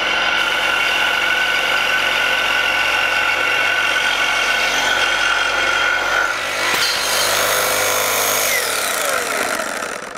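Cordless Milwaukee Super Sawzall reciprocating saw with a Diablo Steel Demon AMPED carbide-tooth blade cutting through a thick steel I-beam: a loud, steady grinding rasp with a high whine running through it. The sound changes about seven seconds in, and near the end falling tones come in as the saw winds down at the end of the cut.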